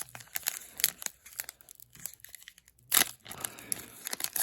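Crinkling and tearing of a foil trading-card pack wrapper as cards are handled: scattered small crackles, with louder crinkles about three seconds in and again near the end.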